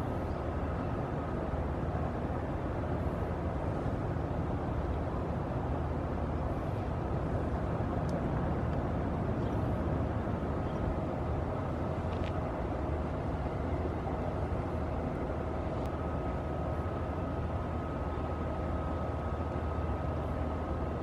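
A steady low engine drone with a faint, steady high whine over it, the even running of harbour machinery or a vessel's engine.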